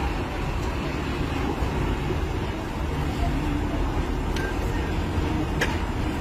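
Steady low rumble of a motor vehicle running, with a few sharp clicks about four and five and a half seconds in.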